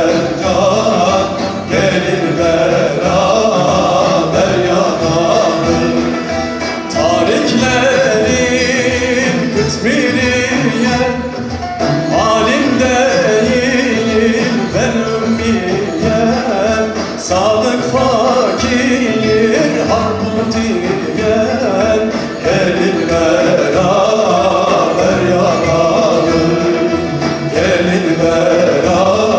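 Turkish Sufi folk song (irfan türküsü): a singing voice with instrumental accompaniment, the melody gliding and ornamented.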